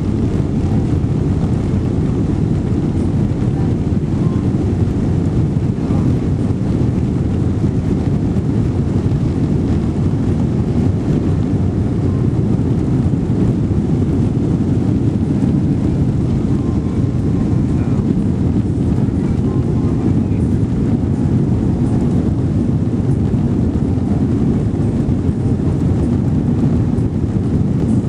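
Boeing 777-200ER heard from inside the passenger cabin: a loud, steady low rumble of jet engines and airflow, with no change in pitch or level.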